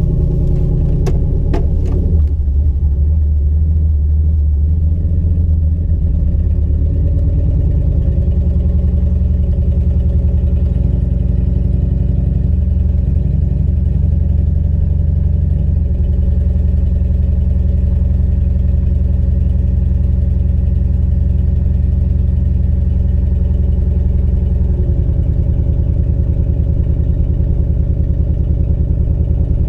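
Turbocharged LQ4 6.0 L V8 truck engine running under easy part throttle while driving, a steady low drone that shifts in pitch several times as road speed and gears change. A few sharp clicks come in the first couple of seconds.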